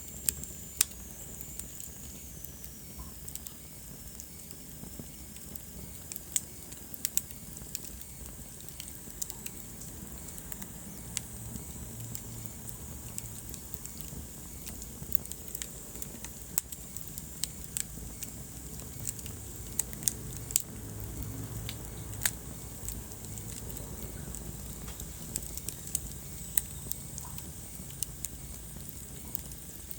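Wood fire burning in a fireplace: frequent irregular crackles and sharp pops over a steady low rumble.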